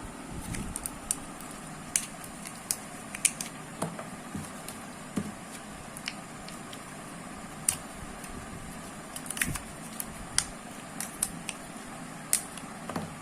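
Irregular light clicks and taps from handling batteries and a plastic alarm clock, over a steady low hum.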